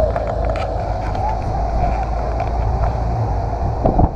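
Car engine running with a steady low rumble, with a few short clicks over it.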